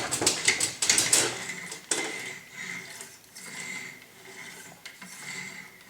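Cleaning rod pushing a wet patch back and forth through a rifle barrel and rod guide: rasping scraping strokes, loudest in the first two seconds, then fainter.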